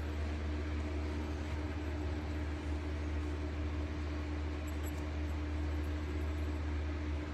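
Steady low hum with an even hiss underneath and a faint steady tone above it, unchanging throughout.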